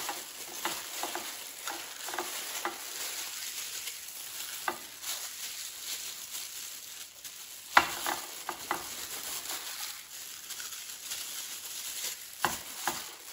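Plastic disposable gloves crinkling and rustling as hands rub seasoning into raw chicken drumsticks, with the soft squish of the meat. Scattered sharp clicks and taps come through, the loudest just past halfway and again near the end.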